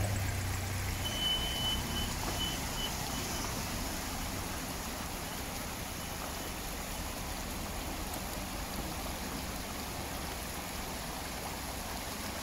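Steady rush of shallow, muddy floodwater flowing across a gravel riverbed. A vehicle engine fades out in the first second, and a short run of high beeps sounds about a second in.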